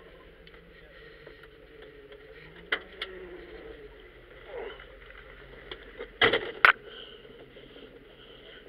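Tow truck idling with a low steady hum, with a couple of sharp clicks in the cab and a loud quick cluster of knocks about six seconds in.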